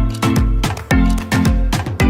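Background music with a steady beat, a deep thump about twice a second under bright pitched notes.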